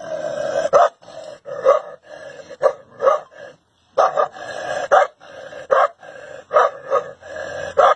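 A dog barking repeatedly at its own reflection in a mirror, about one sharp bark a second, with a steadier sound between the barks.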